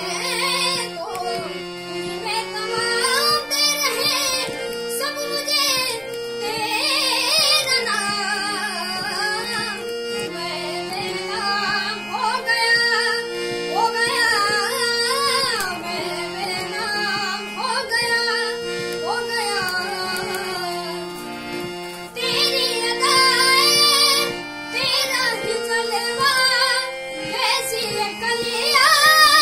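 A child singing an Indian song with ornamented, gliding melodic lines over instrumental accompaniment that holds long sustained notes.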